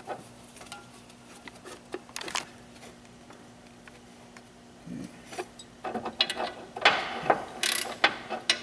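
Hands and tools working on the accessory drive belts and pulleys in a car engine bay: scattered light clicks and metal clinks, sparse at first and coming thick and fast in the last few seconds, over a faint steady hum.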